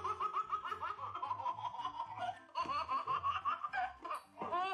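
High-pitched laughter in quick, repeated bursts, over background music with a steady beat.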